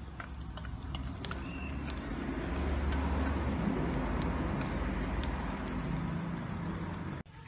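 Steady outdoor background rumble that swells through the middle, with a few light clicks of wooden chopsticks against a steel bowl as chili-garlic sauce is scraped out onto the beans; the sound cuts off suddenly just before the end.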